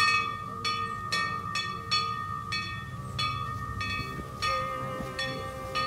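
Violin playing a fanfare-like passage: sharply accented, ringing notes repeating roughly twice a second over a held high note.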